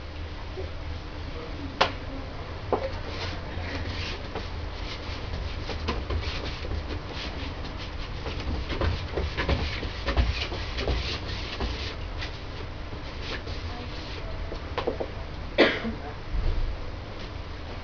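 Hand rubbing and scrubbing strokes against a wall as a red painted panel is covered over with white, in quick irregular strokes. A few sharp knocks come through, a loud one about two seconds in and another near the end, over a steady low room hum.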